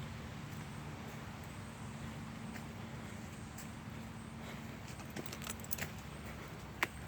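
Footsteps on an outdoor path, a few short sharp clicks and crackles in the second half, over a steady low hum.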